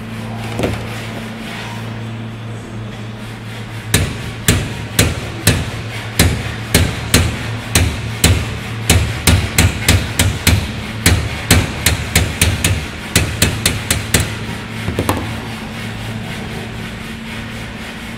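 Hand hammer striking repeatedly at about two to three blows a second. The blows start about four seconds in and stop a few seconds before the end, over a steady low hum.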